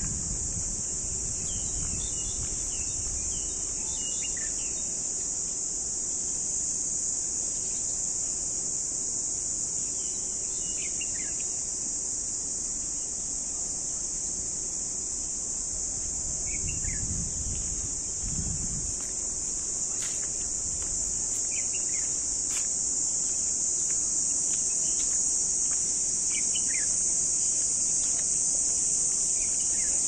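A steady high-pitched insect drone, with short falling bird chirps every few seconds.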